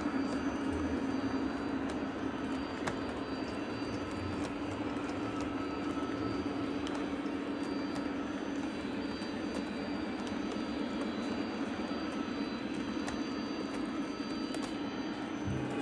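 Model train freight cars rolling past on three-rail O-gauge track: a steady rumble of metal wheels on the rails, with occasional sharp clicks.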